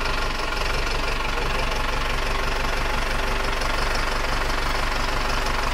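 Mahindra tractor's diesel engine running steadily with an even, fast clatter while the hydraulic loader arm is worked.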